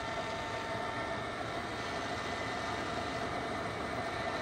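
Csepel RF 50/1250 radial arm drill's spindle and gear head running steadily at 355 RPM with no load: an even mechanical hum with a few faint steady high tones.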